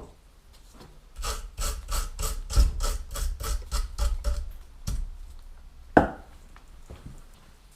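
A hand tool worked fast back and forth, about five scraping strokes a second, followed by two sharp knocks about a second apart.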